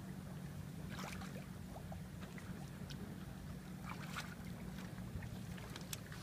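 A steady low hum with a few brief water splashes, about a second in, around four seconds in and near the end, from a fish being held in a landing net in the water.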